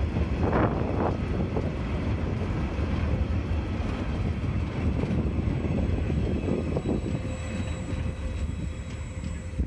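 Empty coal hopper wagons rolling past close by: steel wheels rumbling on the rails, with a few sharp clatters about a second in. The sound eases off near the end as the last wagon passes and goes away.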